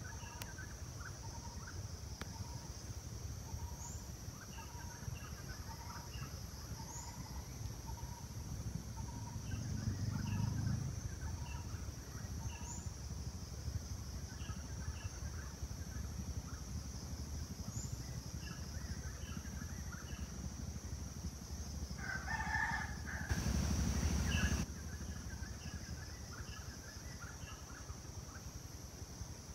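Outdoor ambience with a steady high insect drone and a bird calling in short notes repeated about once a second. A rooster crows about twenty-two seconds in, followed by a brief rush of noise.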